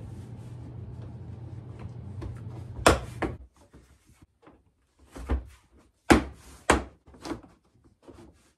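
Large toy tires being stacked and set down on a wooden tabletop: about five separate knocks and thuds, the loudest about three seconds in and just after six seconds. A low steady hum runs under the first three seconds, then stops.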